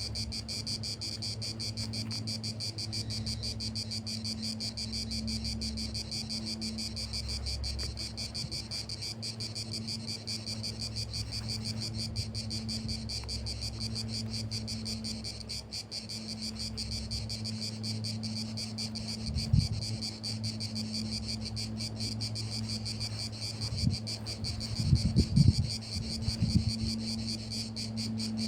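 Insects chirping steadily in a continuous high, fast-pulsing chorus, over a low steady hum. A few low thumps come about two-thirds of the way in and again near the end.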